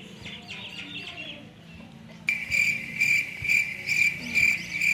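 Cricket chirping in an even repeated chirp about twice a second, starting abruptly about two seconds in and loud against the quiet: the stock 'crickets' awkward-silence comedy sound effect. Faint bird chirps are heard before it.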